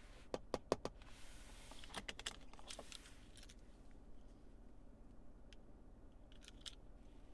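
A series of sharp mechanical clicks: four in quick succession about half a second in, a tight cluster around two seconds in, and a few fainter ones later.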